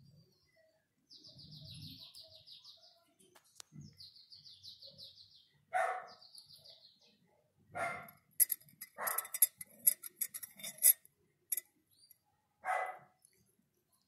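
A kitten licking rice pudding from a ceramic mug, with a quick run of sharp clicks about two-thirds of the way through as the spoon in the mug knocks against it. Four short animal calls, the loudest sounds, come about every one to four seconds.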